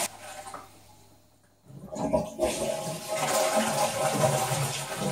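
Toilet flushing from a high wall-mounted cistern whose supply valve has been shut off, so the tank drains without refilling. The rush of water stops abruptly at the start, and after about a second and a half water rushes again.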